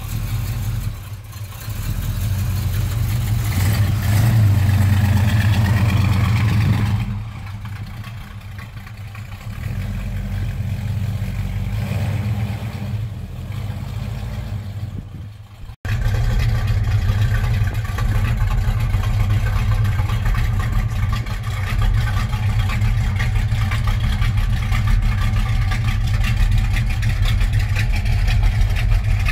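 1972 Chevrolet El Camino SS's V8 running through its exhaust. It swells louder a few seconds in and drops back, cuts out abruptly about halfway, then runs on steadily.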